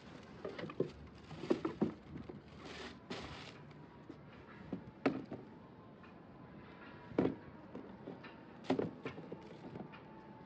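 Cardboard sneaker box and tissue paper being handled: scattered knocks and rustling, with the sharpest knocks about five, seven and nine seconds in.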